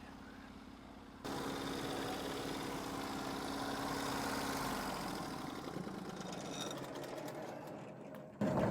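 Norwood HD36v2 portable sawmill's engine idling steadily. It gets louder about a second in and fades away near the end.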